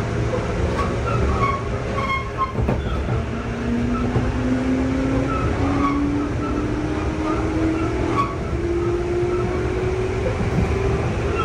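Interior running sound of a JR 211 series 0 electric train (field-added excitation control) picking up speed: a steady low rumble with a drive whine that rises slowly and evenly in pitch.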